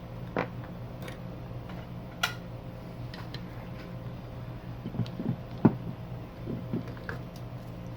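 Scattered small clicks and taps of hand tools on a workbench during soldering work, over a steady electrical hum; the sharpest tap comes about five and a half seconds in.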